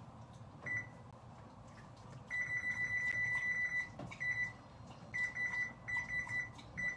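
Oven control panel beeping at one high pitch as its keys are pressed to set the preheat: a single short beep about a second in, a long run of beeps in the middle, then several shorter beeps and groups of beeps.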